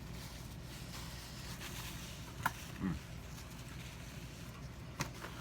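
Low steady room hum with two small sharp clicks, about two and a half seconds apart, and a short low 'hm' from the man eating, falling in pitch, just before the middle.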